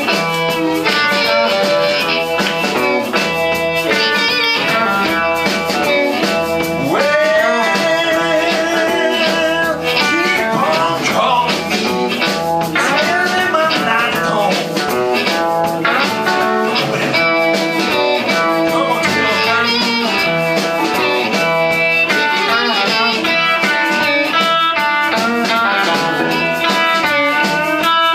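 Live electric blues band playing: amplified blues harmonica over electric guitar, electric bass and drums, with bending, wailing harmonica lines.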